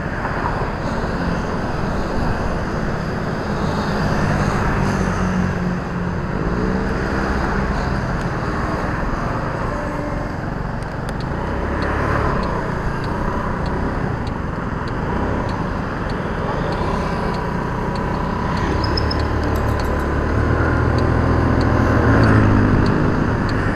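Steady riding noise from a motorbike in city traffic: its engine running, with wind and road noise. Another engine note rises about six to seven seconds in, and a deeper engine hum swells near the end.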